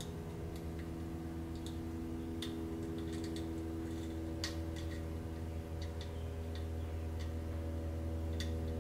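Scattered small, irregular clicks as a ring terminal and its screw are fitted by hand to the switched terminal of a tractor voltage regulator, the loudest about four and a half seconds in. Under them runs a steady low hum.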